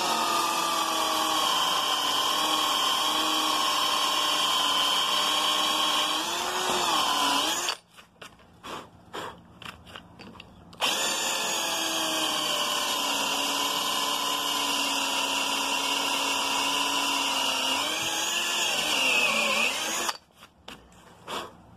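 Electric hand drill with a twist bit boring into the old wooden handle inside a sledgehammer's eye, loosening the wood around the wedge. The motor runs steadily in two long runs of about eight and nine seconds, its pitch sagging briefly just before each stop, with a few light knocks in the pause between.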